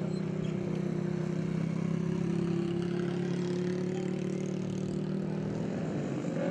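Small 110 cc racing engines running at high revs on track, a steady drone whose pitch lifts slightly a couple of seconds in.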